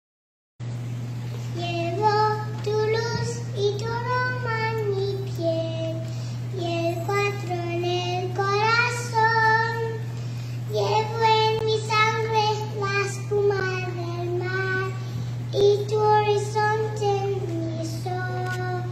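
A young girl singing solo into a microphone, starting about half a second in, with a steady low hum underneath.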